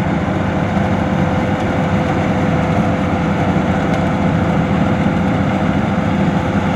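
Combine harvester running steadily at constant speed, a heavy engine note with a steady whine held over it.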